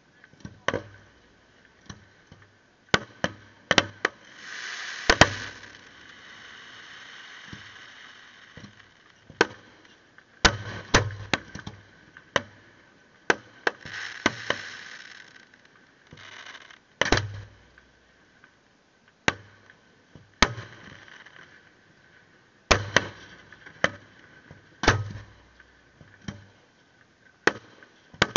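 Fireworks shells bursting: an uneven run of sharp bangs and deeper booms, with two longer stretches of hiss about four to eight seconds in and around fourteen seconds.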